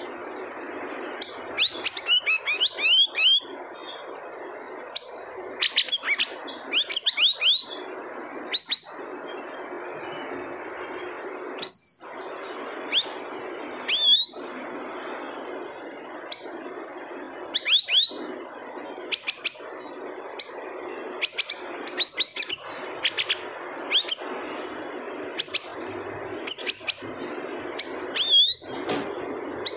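Siri-siri bird calling: short, high chirps that slide downward, given in quick runs of two to five with brief pauses between, over a steady background hiss.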